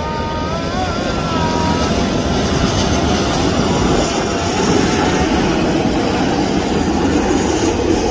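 Jet noise of a Boeing 737-800 on short final, its CFM56-7B engines at approach power. A wavering whine fades out about two seconds in over a steady rush, and the rush grows heavier toward the end as the plane comes close.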